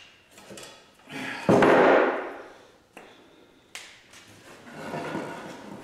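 Lumber being handled on a wooden workbench: a loud wooden knock and scrape about a second and a half in, then a couple of sharp clicks and quieter shuffling.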